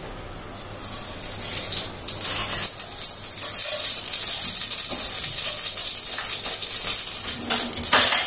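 Tempering for sambar: mustard seeds and spices crackling and sizzling in hot oil. The dense crackle of fine pops builds up about two seconds in and keeps going.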